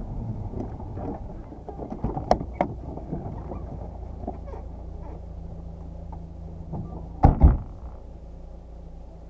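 Car engine running low as the car pulls up and stops, with two sharp clicks a couple of seconds in and a loud double thump of a car door about seven seconds in.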